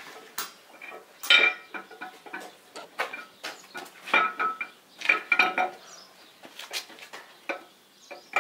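Steel camshaft of a D115 tractor engine being pushed into the cast-iron block and tried for fit in freshly fitted cam bushings, clinking metal on metal. Irregular sharp clinks that ring briefly, the loudest about a second in.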